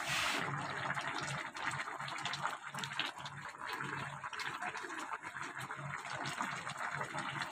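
Papaya and fish curry boiling in a pot, a steady bubbling with many small pops and crackles.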